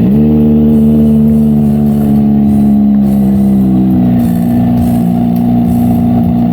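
Kawasaki ZX-25R's inline-four engine, fitted with an ORION aftermarket exhaust, revved up sharply and held at high revs, easing off slightly about four seconds in.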